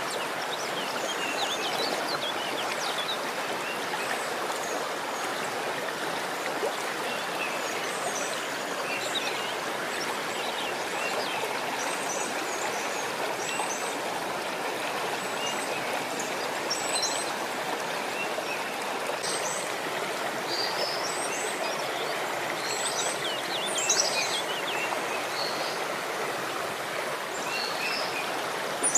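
Steady rushing of running water, like a stream, with birds chirping in short, scattered calls over it.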